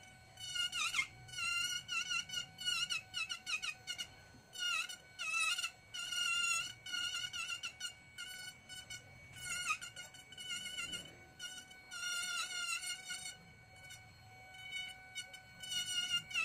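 Handheld electric rotary carving tool whining at high speed, with frequent short grinding bursts as the bit cuts into wood, its pitch dipping under load and recovering each time.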